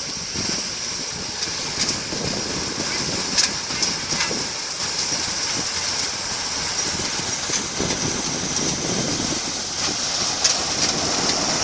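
Combine harvester running steadily while cutting and threshing paddy rice, with a constant high-pitched whine over the machine noise and a few sharp ticks.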